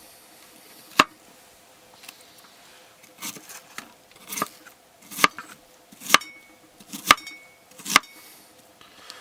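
Kitchen knife chopping onion on a cutting board: about seven sharp, uneven chops, roughly one a second, by someone mincing slowly and clumsily.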